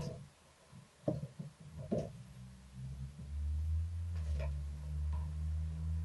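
Kittens' paws landing on a wooden floor as they run and pounce: three dull thuds within the first two seconds. From about three seconds in, a low steady hum.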